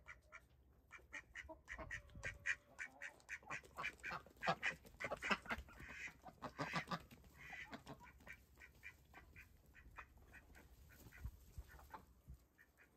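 Domestic chickens clucking in a quick run of short calls as they are chased and caught by hand.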